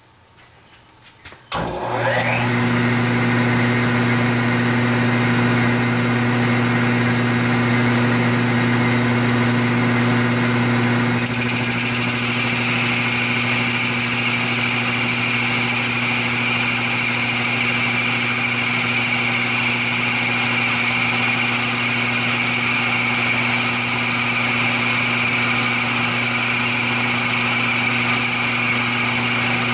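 A milling machine is switched on and spins up within a second to a steady hum, with a boring head in the spindle. About ten seconds in a steady higher hiss joins as the boring head starts a light pass on the cast-iron governor housing.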